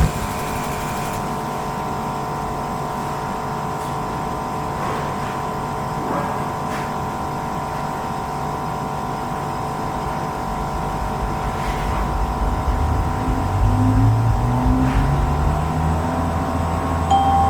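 Steady machine hum with several constant tones; from about twelve seconds in, a deeper tone swells and rises in pitch, as if a motor is spinning up.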